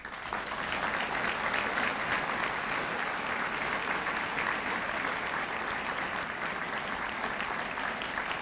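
An audience applauding: a roomful of people break into clapping all at once and keep it up steadily.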